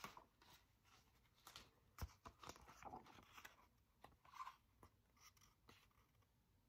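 Near silence, with a few faint clicks and soft paper rustles from a picture book being handled and held open.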